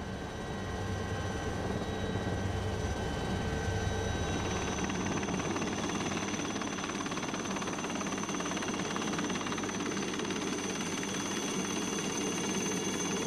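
Helicopter running: a steady low drone, changing about four seconds in to a louder, rushing noise with a steady high whine as a helicopter hovers low nearby.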